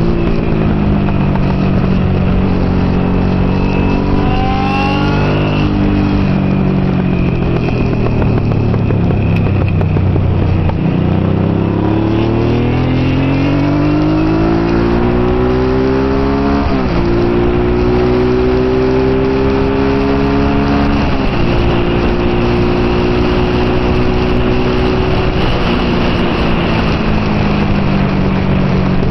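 Honda NT650 Hawk GT's V-twin engine under racing load with wind rush on the bike-mounted camera. The revs fall away for several seconds as the bike slows, then climb hard with two sharp upshifts, and settle to a steady pull near the end.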